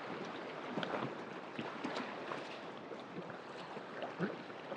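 River rapids: fast water rushing over rocks, a steady rush dotted with small gurgles and splashes.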